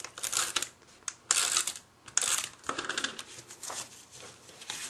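A series of short, scratchy paper strokes, each about half a second long, as cardstock is handled and adhesive is applied along the bottom edge of a card piece.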